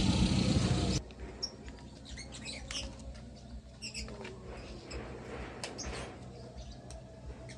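A vehicle engine runs steadily for about the first second and then cuts off abruptly. After that, small birds chirp now and then in short, high, scattered calls over a faint low background.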